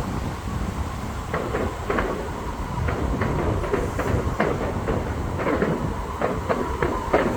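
Fireworks going off: a steady low rumble with a run of sharp pops and crackles that starts about a second in and grows denser near the end.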